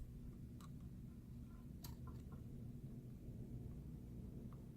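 A few faint, light clicks and taps from pressing a tiny coax cable connector onto a MacBook Pro logic board, over a low steady hum.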